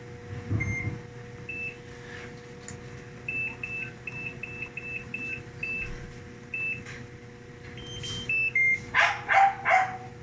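A dog barks about four times near the end, the loudest sound, over a steady electrical hum from the washing machine's water inlet valve. The valve is energised by a control board with shorted driver ICs even while the machine is switched off. A string of short, high electronic beeps sounds in the middle.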